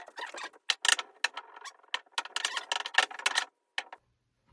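Rapid, irregular light clicks and scrapes of small hard objects being handled, stopping about three and a half seconds in.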